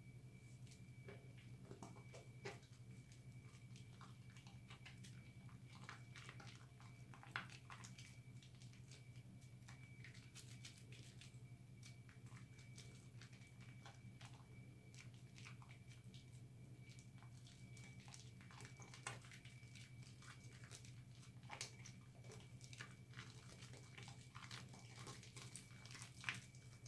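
Faint wet squishing and crackling of thick soap lather as a ball of recycled soap is rubbed and squeezed between the hands, with scattered soft clicks and a few sharper pops. A steady low hum runs underneath.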